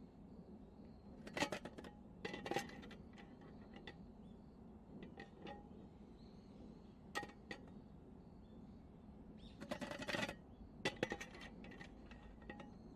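Light metallic clinks from a mess tin's wire bail handle knocking against the aluminium pot and lid as it is lifted and set down, in a few short clusters, the busiest near the end.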